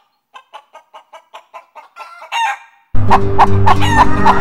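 Domestic hens clucking: a run of soft, quick clucks about four a second, then a louder squawk. About three seconds in, loud cackling calls that bend up and down in pitch start suddenly over a steady low hum.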